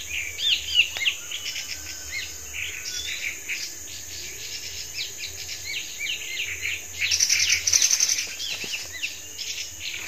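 Tepus babblers calling: many short, quick chirping notes overlapping throughout, thickest and loudest for about a second around seven seconds in.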